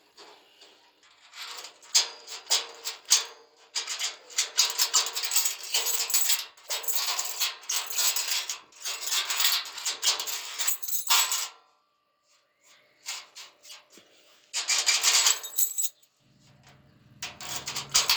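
Metallic clinking and rattling in long bursts of rapid clicks, with pauses between them; a low hum joins the last burst.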